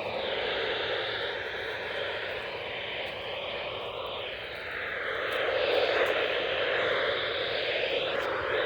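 Weather radio receiver hissing with static on a weak NOAA Weather Radio signal, a steady rushing noise with faint wavering tones inside it.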